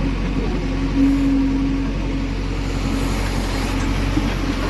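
JCB 3DX backhoe loader's diesel engine running steadily under load while the backhoe arm digs and swings a bucket of soil. It makes a continuous drone with a slight waver in pitch.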